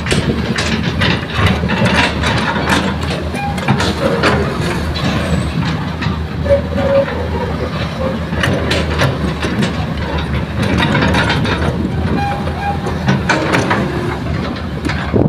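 Diesel engine of a hydraulic excavator running steadily while loading soil, with frequent metallic clanks and knocks throughout.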